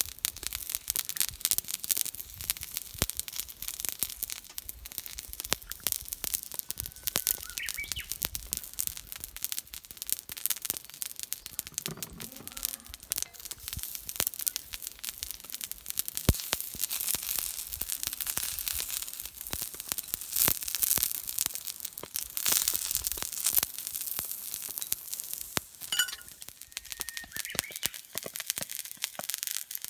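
Thick ribeye steak sizzling on a heavy homemade iron griddle over a wood fire: a steady hiss thick with small crackles and sharp pops.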